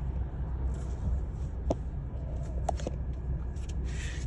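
Steady low rumble of an idling car heard from inside the cabin, with a few light clicks and a short hiss near the end.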